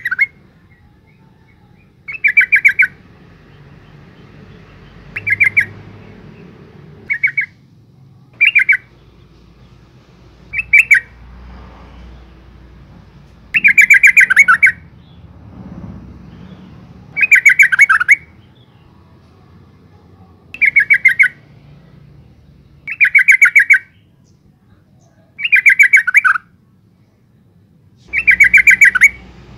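Yellow-vented bulbul calling: short bursts of rapid chattering notes repeated every two to three seconds, the later bursts longer and louder. This is a female's call, of the kind used as a lure to set male bulbuls singing.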